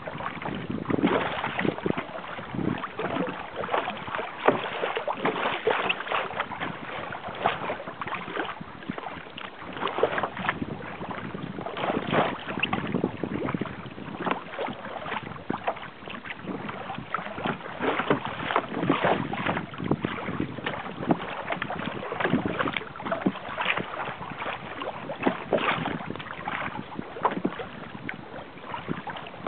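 Water splashing and slapping irregularly against the hull of a sail-assisted kayak moving through choppy water, with wind buffeting the microphone.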